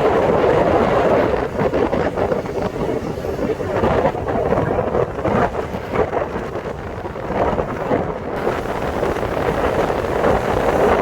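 Wind buffeting the microphone of a passenger riding on a moving motorcycle taxi, over the rumble of the motorcycle and road traffic; a steady, loud rush that swells and dips.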